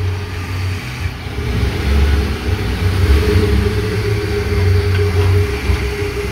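Ford F-150 pickup's engine running as the truck drives up and rolls to a stop close by.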